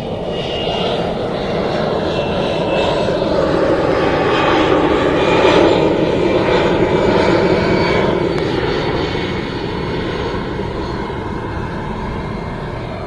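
Airplane flying low overhead: a loud engine noise that builds to a peak about halfway through and then slowly fades, with a high whine that drifts slightly down in pitch as it passes.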